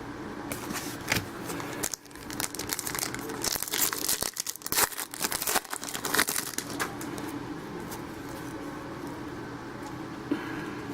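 A trading-card pack wrapper crinkling and tearing as the pack is opened: a run of crackles over several seconds that dies down to a faint steady hum near the end.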